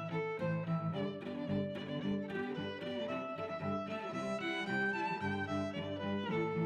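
Background music: a gentle melody led by bowed strings over held lower notes.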